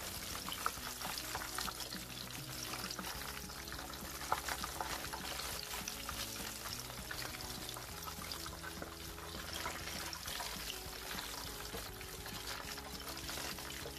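Cornstarch-coated beef slices deep-frying in hot oil, a steady crackling sizzle, with occasional clicks of a metal slotted spoon as pieces are lifted out.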